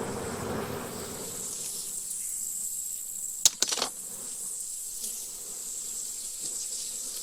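Honeybees buzzing around the hives, loudest in the first second and then fading, over a steady high-pitched insect trill. A few sharp clicks come about halfway through.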